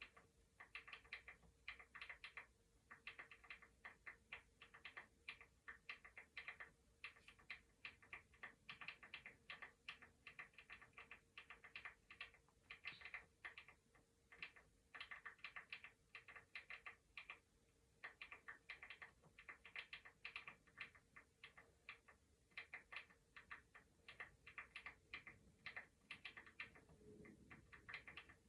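Computer keyboard typing: rapid runs of key clicks in bursts of a second or two, separated by short pauses.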